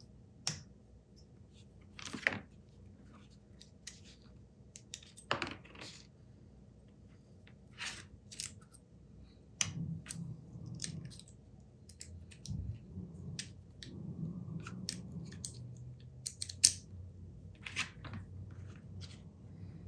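Small steel tailstock parts and hand tools being handled and fitted on a workbench: a scattered run of light metallic clicks and clinks, with a couple of brief scrapes in the first few seconds.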